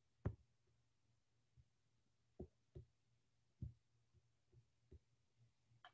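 Near silence: room tone with a faint low hum and a few soft, faint taps at irregular intervals.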